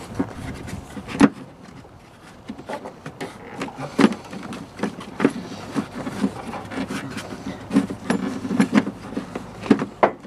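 Irregular clicks, knocks and rubbing from hands working a plastic power steering fluid reservoir in a car's engine bay, pushing it into place. The sharpest knocks come about a second in and about four seconds in.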